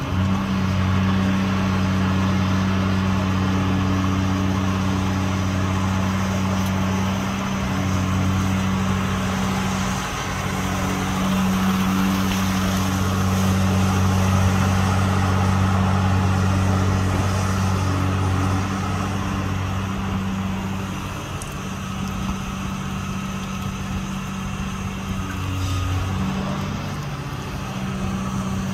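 Diesel engine of a long-reach dredging excavator running under load, a steady low hum that drops and shifts several times as the machine works.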